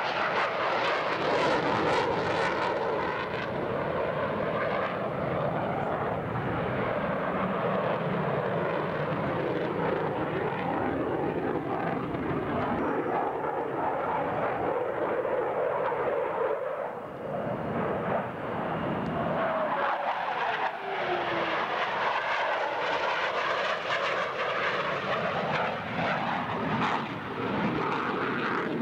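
McDonnell Douglas F-15 Eagle's twin jet engines running in afterburner through a demonstration, a continuous loud roar with a swishing rise and fall in tone as the jet turns. The roar dips briefly about two-thirds of the way through, then swells back.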